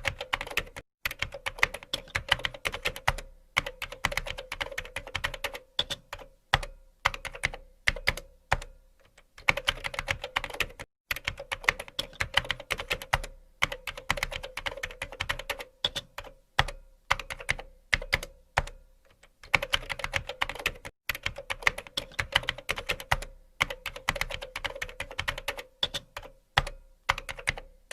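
Typing on a computer keyboard: fast runs of key clicks and thocks, broken by short pauses every few seconds.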